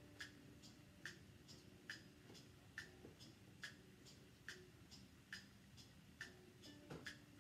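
Near silence with a faint, regular ticking, a little faster than one tick a second.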